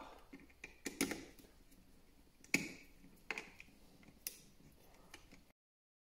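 Screwdriver and switch insert clicking and scraping in a flush-mounted wall box as the switch is adjusted and tightened: a handful of sharp, separate clicks and knocks, after which the sound cuts off abruptly near the end.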